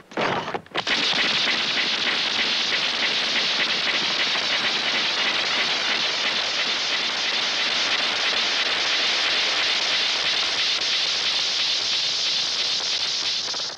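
Long, steady rushing hiss from the film's soundtrack, like a wind sound effect. It starts abruptly about a second in, holds unchanged for over ten seconds, and drops off at the end.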